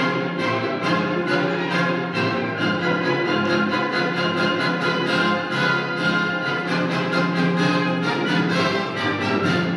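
Orchestral classical music led by violins, playing steadily at full level.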